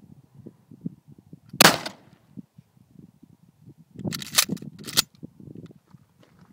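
A 20-gauge shotgun fires once about a second and a half in, a single loud blast. A few quieter sharp clacks follow about four to five seconds in.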